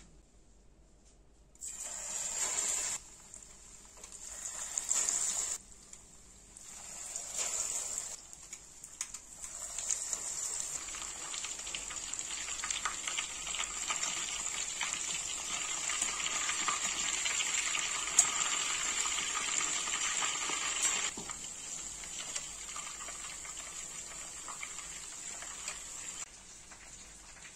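Breaded chicken donuts deep-frying in hot oil, a sizzle that comes in three short surges at first, then runs steadily, loudest in the middle and softening for the last few seconds.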